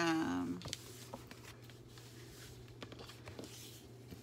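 A short hummed voice sound at the very start, then faint rubbing and light taps of hands pressing and smoothing the paper covers of a handmade junk journal flat, over a faint steady low hum.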